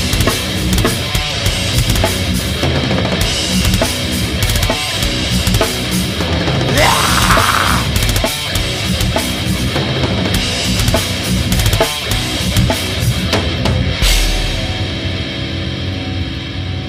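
Metal band playing an instrumental passage: drum kit with heavy bass drum under distorted electric guitar. About fourteen seconds in the drums stop and a guitar chord is left ringing.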